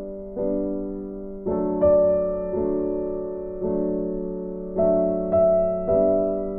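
Background music: soft piano chords struck about once a second, each ringing and fading before the next.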